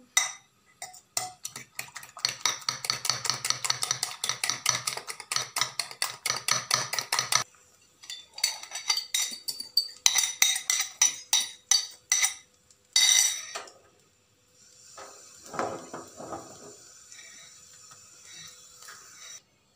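A fork beating egg batter in a glass bowl: fast, even clinking strokes for about seven seconds. Then a spoon scrapes and taps the batter out of the bowl into a frying pan, and near the end the omelette sizzles softly in the pan.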